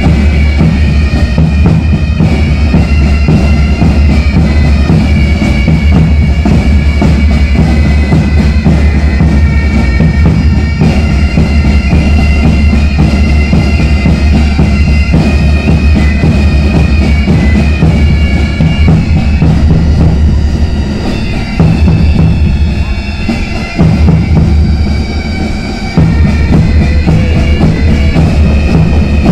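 Bagpipe music: a melody over steady low drones, with a few brief dips in loudness near the end.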